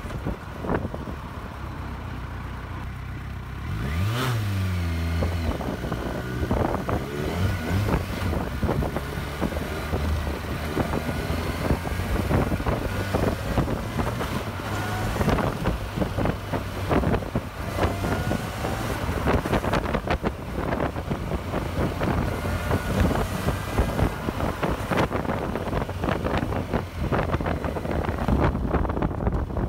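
Kawasaki Versys 1000's inline-four engine running at low speed, then accelerating with a rising note about four seconds in. Wind buffets the microphone heavily as the bike rides on.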